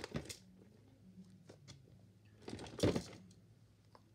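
Fidget toys being handled: a few small clicks near the start, then a short rustling clatter about three seconds in.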